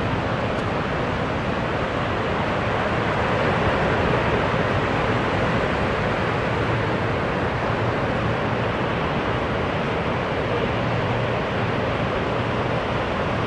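Ocean surf: a steady wash of breaking waves and white water rolling in.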